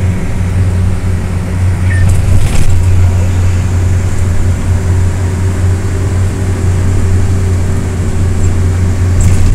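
A moving minibus heard from inside its passenger cabin: a steady low drone of engine and road noise.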